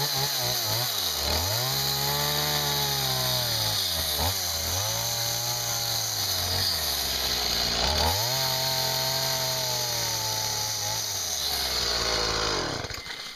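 Chainsaw running at speed, its engine note sagging and picking up again a few times, about one and a half, four and eight seconds in, then cutting off shortly before the end.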